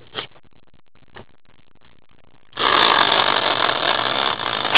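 A caster wheel on an upright stand, spun by hand, whirring steadily on its axle; the whirr starts suddenly about two and a half seconds in, after a few faint handling clicks.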